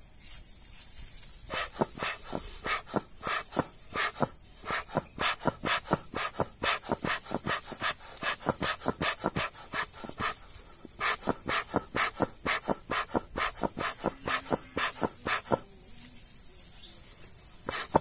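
Bee smoker bellows being pumped by hand in rapid puffs, about four a second, with a couple of short breaks, blowing air into smouldering coconut husk fibre to get the smoker going and making smoke.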